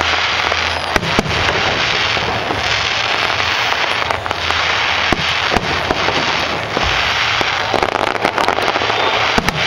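Fireworks display: a continuous dense crackling of many small bursting stars, with sharp bangs from individual shells scattered throughout.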